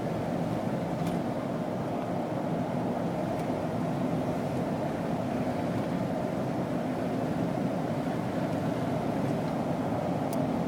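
Steady engine and road noise of a vehicle being driven, an even rumble with no change in level.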